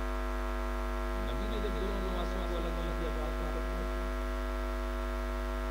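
Steady electrical mains hum with many overtones from the public-address sound system, with faint voices in the background about a second and a half in.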